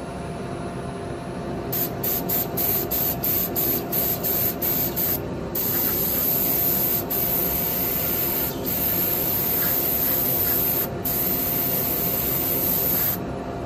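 Black spray paint hissing onto a spinning turned wooden pot. First come about a dozen quick squirts, then long sprays broken by a few short pauses, over a steady machine hum.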